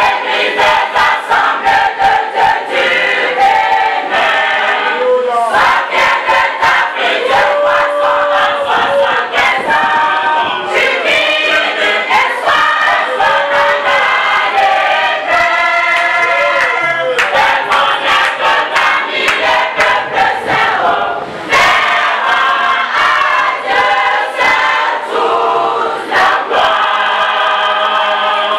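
Women's church choir singing together, many voices in harmony.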